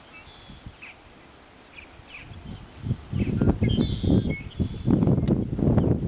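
Wind buffeting the microphone, calm at first and then gusting hard from about three seconds in, with small birds chirping over it and one buzzy call near the middle.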